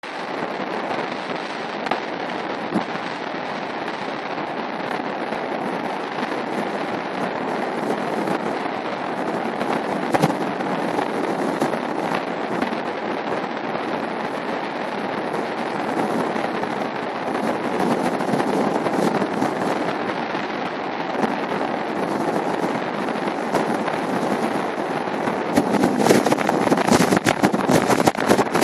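Steady rush of small waves breaking in shallow surf, overlaid with sharp crackling pops that grow denser and louder near the end.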